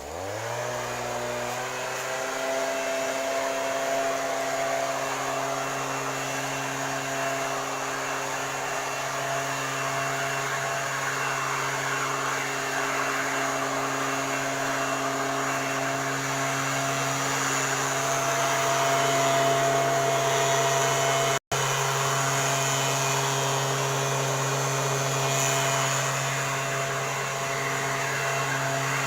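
STIHL backpack mist-blower sprayer's two-stroke engine revving up from a low speed in the first second or so, then running steadily at high speed with the rush of its blower fan. The sound cuts out for an instant about two-thirds of the way through.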